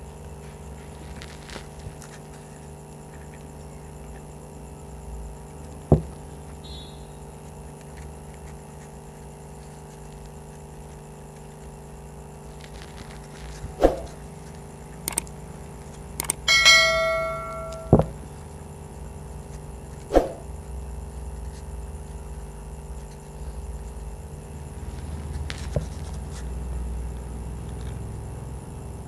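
Handling noise from paper-flower crafting: a few sharp knocks and taps as the glue tube and paper petals are handled on the table, over a steady hum. About halfway through, a short bell-like ring sounds for about a second.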